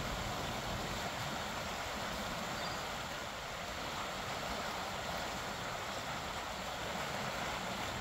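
Steady, even rush of a swollen, fast-flowing creek running high after rain.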